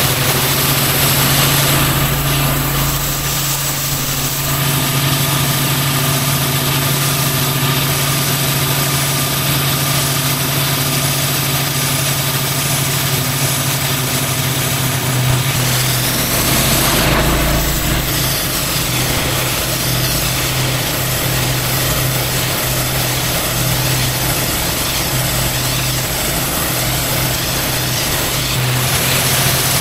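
Pressure washer engine running steadily under a constant hiss, with a brief change in tone about halfway through.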